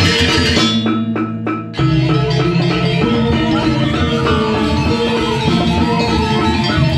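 Balinese gong kebyar gamelan playing: bronze metallophones, gongs and kendang drums in a fast, dense texture. About half a second in, the ensemble drops to a few sharp unison strokes over a low ringing tone, then the full gamelan comes back in at around two seconds.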